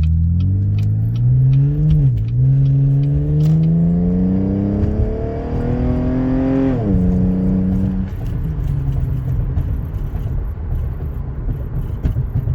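Muffler-deleted Cadillac ATS accelerating hard, heard from inside the cabin. The exhaust note rises in pitch, with a quick shift about two seconds in and a sharp drop at a second upshift near seven seconds. It then settles into a steady low drone under road noise as the car cruises.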